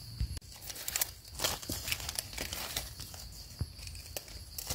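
Dry leaf litter rustling and crackling under hands digging out and handling a wild mushroom, with irregular small crackles and clicks as a small knife trims its stem.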